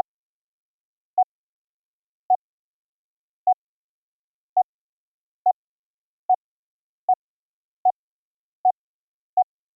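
Morse code CW tone from a computer: eleven short beeps of one steady pitch, each a single dot, a little over a second apart at first and coming steadily closer together, about 0.7 s apart near the end.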